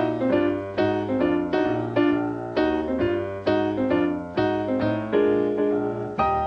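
Piano music: chords struck in a steady rhythm, about two a second.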